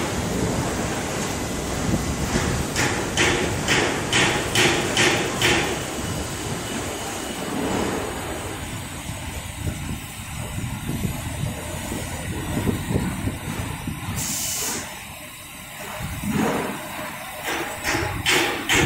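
A CNC stainless-steel sink seam welding machine works over steady machine noise. Sharp clicks come about three a second in the first few seconds and again near the end, and a short hiss of air sounds about fourteen seconds in.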